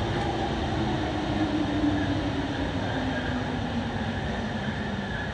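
Rubber-tyred MP05 metro train running into a station, with steady running noise and a motor whine that falls slowly in pitch as the train brakes.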